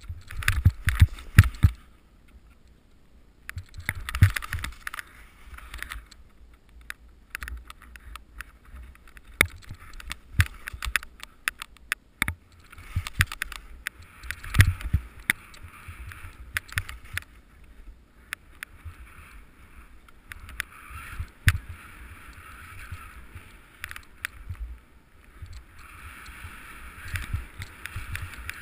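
Skis hissing and scraping through deep powder snow, with wind rumbling on the camera microphone and frequent sharp knocks throughout. It is briefly quieter early on and fuller again near the end.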